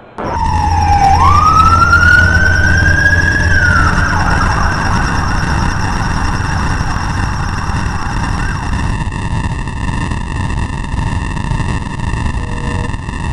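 Emergency siren: after a sudden loud start, one wail that dips, rises and holds, then falls away about four seconds in, over a heavy low rumble and a dense, steady noise with held tones. Near the end a telephone busy-signal beep begins.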